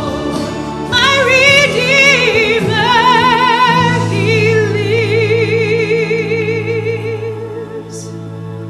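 A woman singing solo over steady accompaniment, her voice carrying a wide vibrato. About four seconds in she settles on one long held note that slowly fades toward the end.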